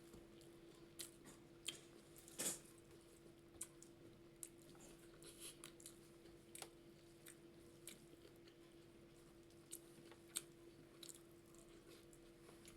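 Faint chewing and small wet mouth clicks of a person eating, coming as scattered short ticks over a steady low hum.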